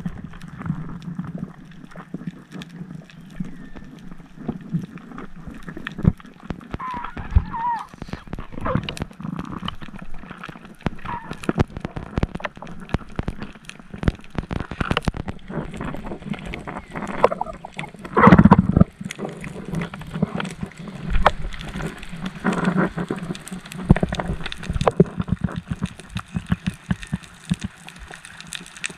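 Underwater sound picked up by a camera in its housing while swimming over a coral reef: irregular crackling clicks and muffled water movement, with a louder gurgling rush about 18 seconds in.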